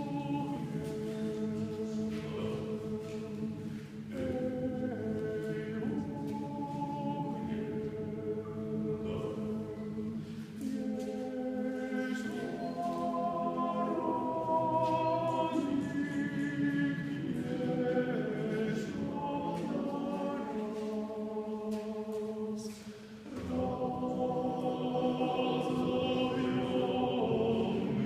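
Male vocal quartet singing a cappella in harmony: held chords that shift over a steady low bass note, with short breaths between phrases about four seconds in and again about three-quarters through.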